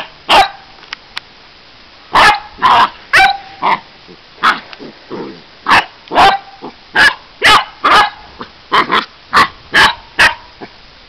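Basset hounds barking in play: a long series of short sharp barks and yaps, two or three a second with brief pauses.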